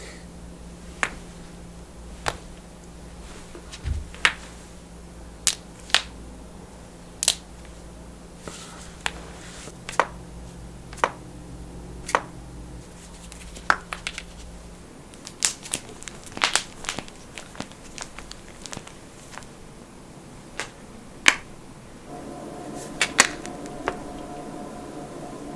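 Human joints cracking: a run of about twenty sharp pops and clicks at irregular intervals, roughly one a second, some much louder than others. A low steady hum stops about halfway through.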